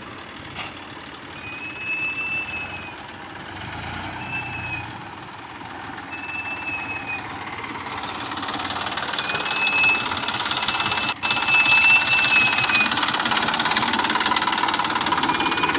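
Massey Ferguson 241 DI tractor's three-cylinder diesel engine running, getting louder about halfway through, with a brief dropout near the end. Short high-pitched tones repeat over it every second or two.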